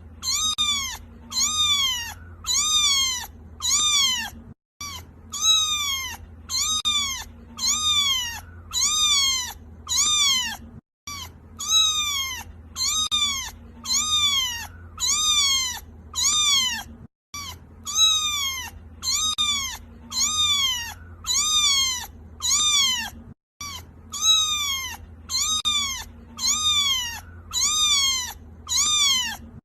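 Kitten crying: a run of high meows, about one every two-thirds of a second, each rising and then falling in pitch. It is a short recording looped, with a brief silent break about every six seconds.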